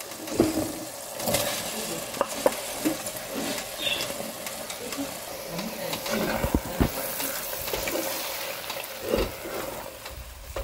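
Wooden spatula stirring boiled chana dal into spinach masala in a metal pot: wet scraping and scattered knocks against the pot over a steady sizzle from the pan.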